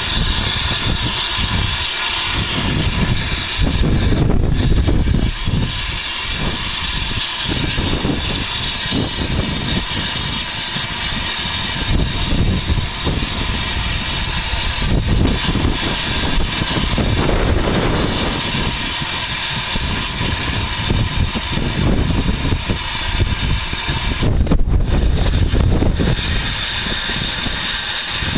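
Wind buffeting the microphone in irregular gusts, over a steady high hiss.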